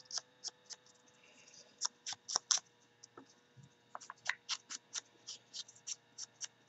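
Quick light taps, about three or four a second, of a foam ink blending tool dabbing ink onto the edges of a small paper butterfly.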